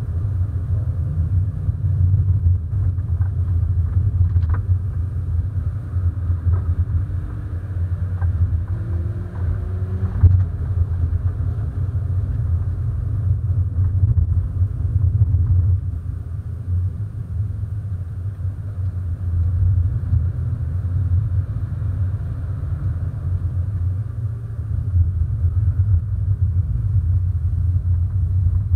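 Hyundai Coupé with a 1.6-litre 16-valve four-cylinder, driven at a steady, unhurried pace: a deep, even engine and road rumble. A faint engine note rises slowly about seven to ten seconds in, and there are a couple of light knocks.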